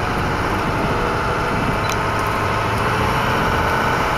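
Truck engine running steadily while driving on a gravel road, with tyre and road noise, heard from inside the cab.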